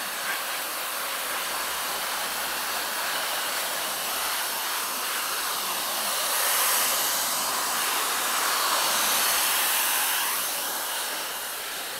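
Handheld pet dryer blowing a steady rush of air into a wet dog's coat, a little louder in the second half.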